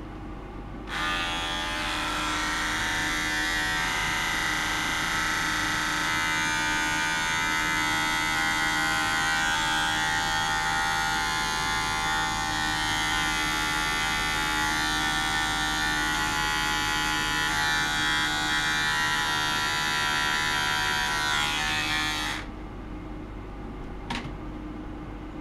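Audible buzz of a small glass bottle driven by a clipped-on ultrasonic probe: a steady, high, many-toned buzz that starts abruptly about a second in and cuts off shortly before the end. A single sharp click follows near the end.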